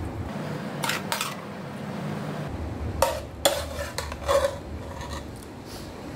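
A metal spoon stirring and scraping cooked bean-sprout filling in a metal bowl, clinking sharply against the bowl a few times, around one, three and four seconds in.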